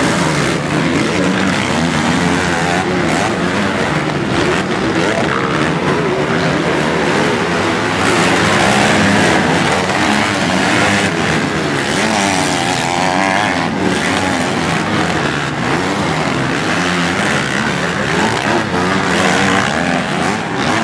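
A pack of motocross bikes racing around a dirt track, several engines revving up and down at once, their pitches overlapping and rising and falling as the riders work through the turns.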